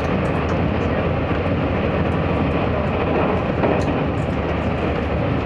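Steady running noise of a Taiwan Railways DR3000 diesel railcar, heard from inside a passenger car as the train travels through a long tunnel.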